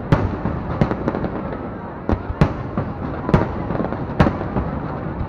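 Fireworks display: sharp loud bangs of bursting shells at irregular intervals, roughly one a second, over a continuous background of further bursts and crackle.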